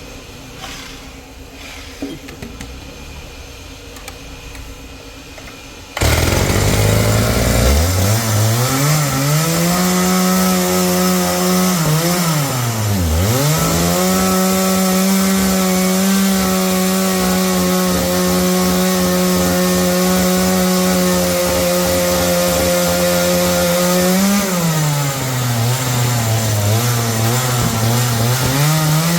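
Sawmill saw starting abruptly after a few quiet seconds, its motor winding up over several seconds to a steady, loud running pitch. The pitch dips sharply once about halfway through and sags again for a few seconds near the end before recovering.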